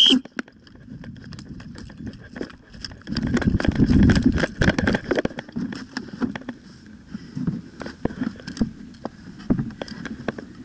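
Footsteps and gear rattle from a player moving to cover, with scattered sharp clicks throughout and a louder stretch of rough handling noise on the worn camera from about three to five seconds in.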